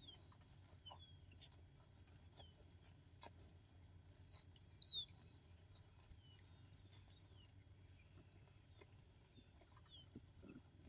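Small songbird calls: faint high chirps throughout, with a louder burst of quick falling whistled notes about four seconds in and a brief high trill just after, over a steady low hum.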